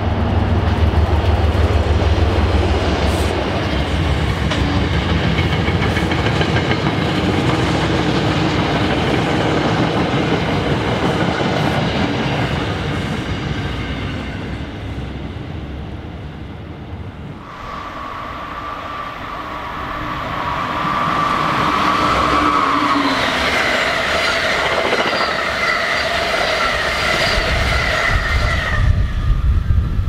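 A passing train: a loud, steady rumble with the clickety-clack of wheels on the rails. About seventeen seconds in, this gives way abruptly to a long, steady multi-note tone from the train, held for about ten seconds before it stops near the end.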